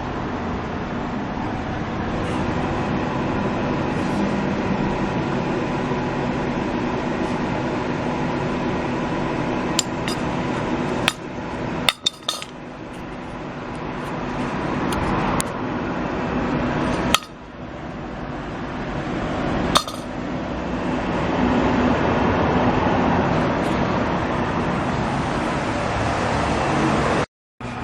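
A steady mechanical hum, like a running engine, with a few sharp metallic clinks and knocks from tools between about ten and twenty seconds in. The sound drops out abruptly several times.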